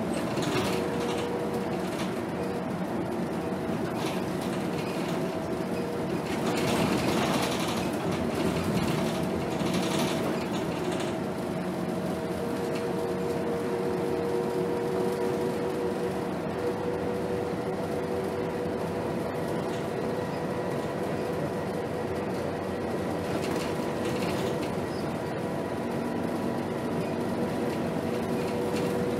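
A 2010 Scania K280 city bus running along the road, heard from inside the passenger saloon: steady engine and road noise with a constant drivetrain whine, swelling louder for a few seconds a little before the middle.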